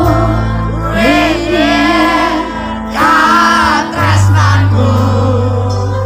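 Live band music: a woman sings the song's melody into a microphone over electric guitar, bass and drums, in phrases with a short break near the middle.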